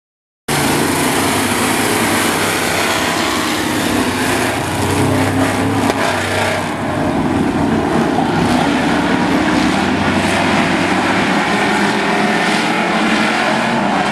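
Several demo pickup trucks' engines running together on a speedway oval, a dense steady engine noise that cuts in abruptly about half a second in.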